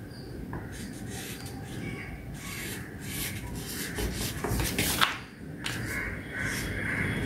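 Marker pen scratching along paper as it traces around a paper pattern piece, with the paper rubbing and shifting on a wooden table. A single sharp click about five seconds in.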